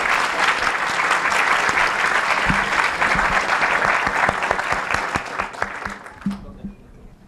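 Audience applauding, a dense patter of many hands clapping that fades away about six seconds in.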